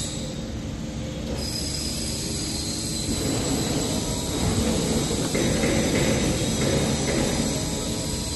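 Steady machine noise of machinery running, growing louder about three seconds in.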